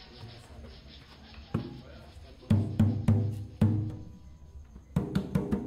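Zabumba drum being beaten. A single stroke comes, then a few deep, ringing strokes, and near the end a quicker run of beats.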